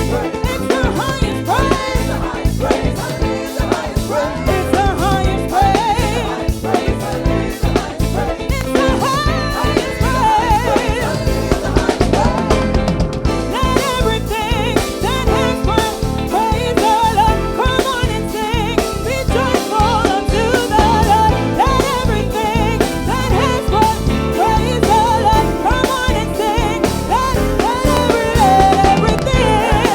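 Gospel praise-and-worship song: a singing voice over a full band, with a drum kit keeping a steady, busy groove throughout.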